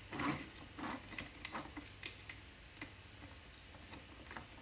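Faint, irregular clicks and taps of 3D-printed plastic robot parts and wires being handled by hand, a few light knocks a second apart.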